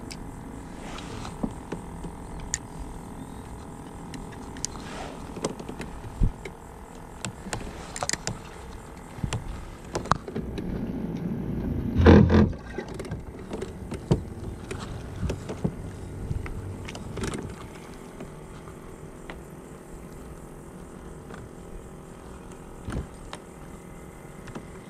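Steady electric hum of a Minn Kota trolling motor, with scattered clicks and knocks of rod and reel handling on the kayak; the loudest knock comes about twelve seconds in.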